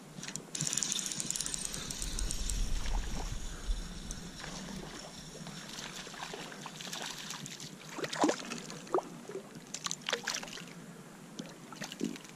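River water sloshing and trickling around a wading angler, with a run of sharp splashes and knocks in the last few seconds as a small smallmouth bass is brought to hand at the surface.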